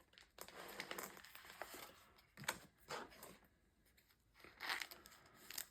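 Quiet crinkling and rustling of plastic as trading cards are handled, with a few sharp clicks and snaps.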